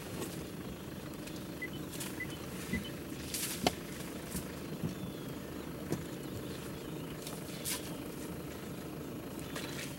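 Steady low hum of an idling engine, with a few sharp knocks, the loudest a little over a third of the way in, and a few faint short bird chirps.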